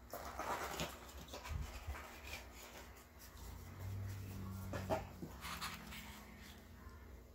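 Cardboard packaging being handled: an inner tray sliding out of its sleeve with a rustle at the start, then light clicks and taps of cardboard and plastic. A low steady hum comes in about four seconds in and lasts about a second and a half.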